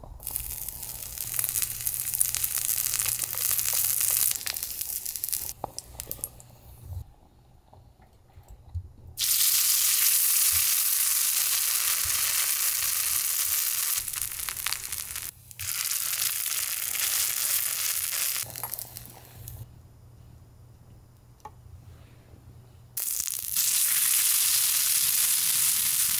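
Oil sizzling as food fries in a miniature pan, in several stretches of a few seconds each that start and stop abruptly, with quieter gaps between.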